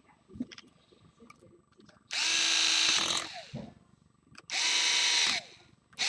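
Small electric screwdriver running in short bursts of about a second, twice and starting a third time near the end, as it drives in the shock-tower screws; faint clicks of parts being handled before the first burst.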